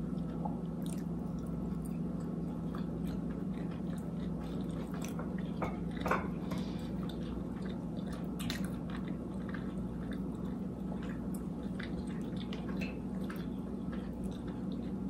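Chewing and mouth sounds of a person eating Chinese takeout, with scattered small clicks, over a steady low hum.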